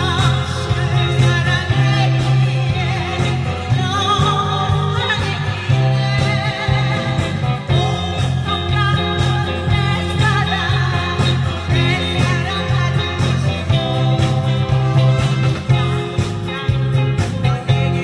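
A singer performing a song with vibrato over band accompaniment, with guitar and a steady, pulsing bass beat.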